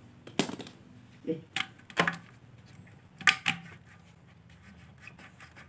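Plastic and metal parts of a CRT television's deflection yoke being handled on the picture tube neck: about six short, sharp clicks and knocks over the first four seconds.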